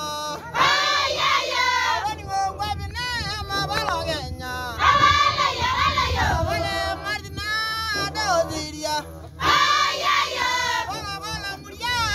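Group of Maasai villagers singing a traditional welcome song together, mostly high women's voices. Loud full-group phrases come in about every four to five seconds, with quieter singing between them.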